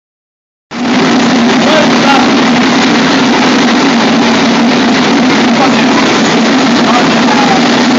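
Steady, loud machinery noise in a forge shop, a constant hum under a dense roar, starting abruptly just under a second in. Voices are faintly audible beneath it.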